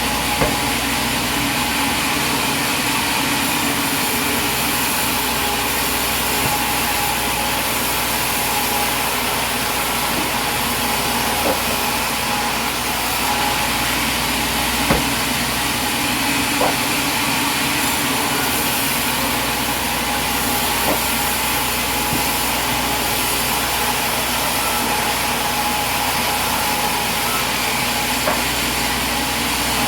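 Sawmill machinery running with a steady, loud mechanical drone and a constant tone, broken by a few short knocks.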